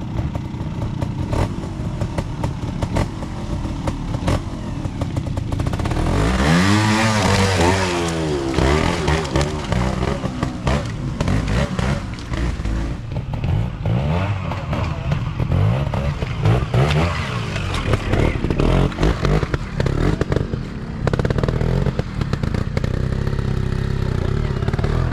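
Trials motorcycle engine blipped and revved in short surges as the rider climbs through a section, the pitch rising and falling repeatedly, with the strongest rev about six to eight seconds in. Scattered knocks and clatter come from the rough ground.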